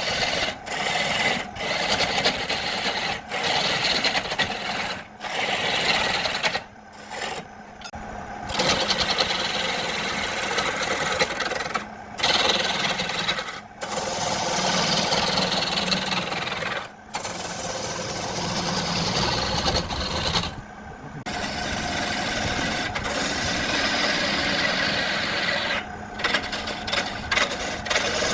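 Tools working wood: a steady rasping, scraping sound of wood being cut or abraded, broken off abruptly by several short gaps.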